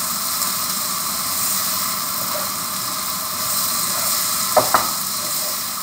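Prawns, potato and onion stalks sizzling steadily in hot oil in a pan as they are stirred with a wooden spatula; two quick knocks a little over four and a half seconds in.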